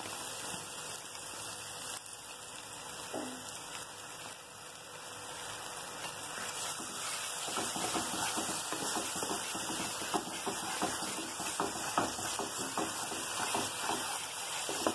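Onion-spice masala sizzling in a nonstick frying pan as curd is added. About halfway through, a wooden spatula begins stirring it fast, with many quick scraping strokes over the sizzle.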